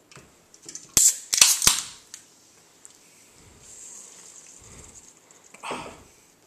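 Aluminium soda cans cracked open by their pull tabs: a few sharp pops about a second in, each followed by a brief fizz of escaping gas.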